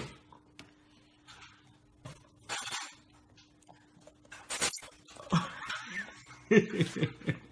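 A toddler eating from a plastic plate with a spoon at a high chair: light clicks and two brief scraping noises over a faint steady hum, then short vocal sounds from a voice in the last couple of seconds.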